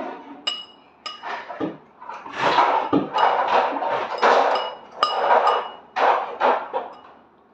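A utensil stirring and scraping in a bowl, with ringing clinks against its side. It starts with a single clink, then from about two seconds in runs in repeated strokes about twice a second.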